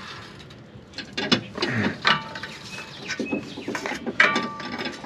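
A wrench being worked on a tie rod end nut in a car's front suspension: irregular metallic clicks, with short squeaky tones about two seconds in and again near the end.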